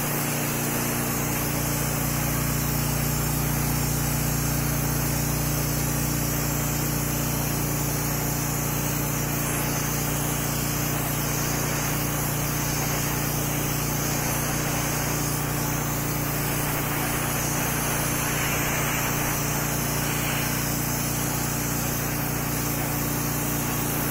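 Soda blaster running continuously: compressed air and sodium bicarbonate hissing out of the blast nozzle onto stone, over a steady low hum.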